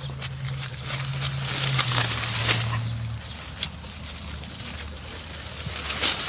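Dry leaves, grass and twigs rustling and crackling in irregular clicks as a dog pushes and sniffs through undergrowth, with leaves brushing close past the microphone. A low steady hum runs underneath and stops about three seconds in.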